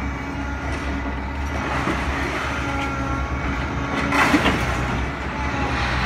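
Diesel engine of a grapple-equipped material-handling excavator running steadily under load while the grapple works scrap metal in an open wagon, with a louder burst of crunching, scraping metal about four seconds in.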